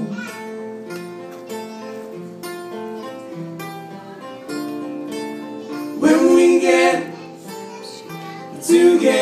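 Acoustic guitar played live, strumming chords at an even pace between sung lines, with louder passages about six seconds in and again near the end.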